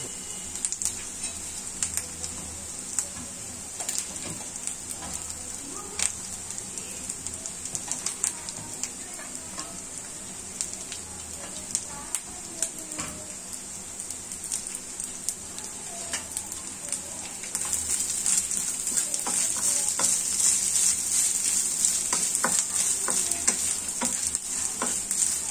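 Grated coconut and coconut pieces sizzling in ghee in a wok, with scattered crackles. About two-thirds of the way through, the sizzle grows louder and busier as a wooden spatula stirs and scrapes the coconut around the pan.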